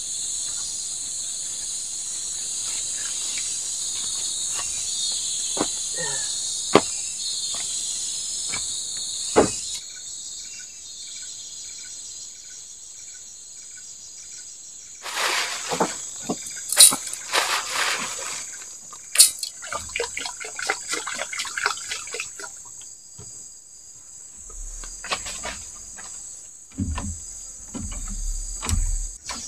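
Forest insects buzzing in a steady high chorus, joined by a few sharp knocks and a stretch of clattering about halfway through.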